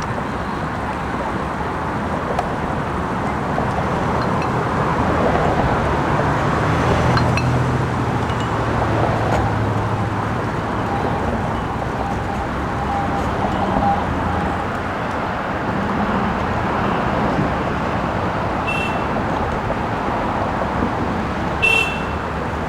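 Fire truck engine running steadily under a constant rushing noise, with two short high chirps near the end.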